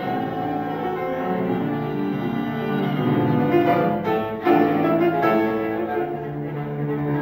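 A violin-family string instrument played with the bow, in sustained notes over grand piano accompaniment in a classical piece, with a few sharp accented chords about halfway through.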